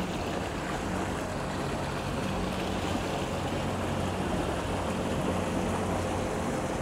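A boat engine running steadily at idle, under a haze of wind and water noise.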